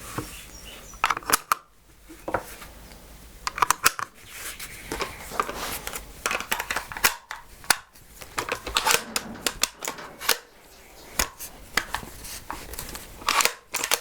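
Sharp metallic clicks, knocks and rattles of a bolt-action hunting rifle being handled: cartridges pushed into the magazine and the bolt worked.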